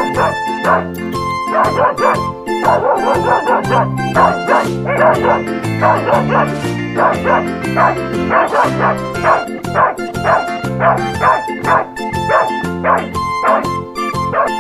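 Dogs barking in quick, short, repeated calls over upbeat background music.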